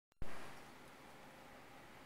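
A single sharp knock right at the start that fades over about half a second, then steady low hiss of room noise.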